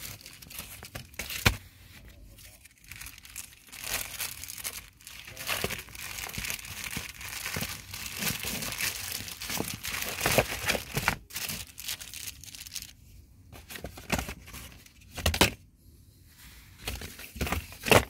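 Clear plastic wrapping on a carbon cabin air filter crinkling and tearing as it is unwrapped and handled, with a few sharp knocks.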